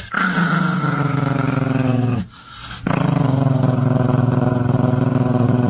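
A pet's long, low growl, held twice with a short break between.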